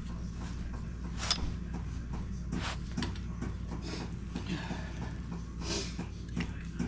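Light metal clicks and brief scrapes of hand work on a side-by-side's rear brake caliper as it is worked loose from its bracket, over a steady low hum.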